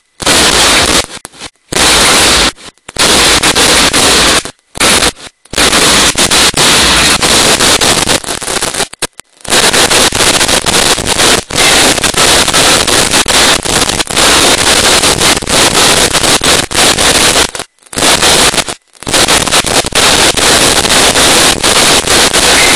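Dense, continuous barrage of fireworks and firecrackers, so loud that the recording distorts and cuts out to silence for a moment several times.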